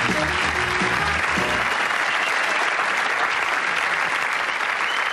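Audience applauding steadily, with a short musical sting of low bass notes that ends about a second and a half in.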